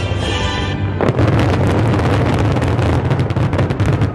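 Fireworks display going off: a sudden loud report about a second in, then a rapid, unbroken barrage of bangs and pops.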